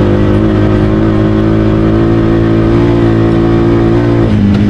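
Honda Pioneer 500 side-by-side engine running hard at full throttle during a standing-start acceleration run, its revs held high and steady. About four seconds in, the revs drop.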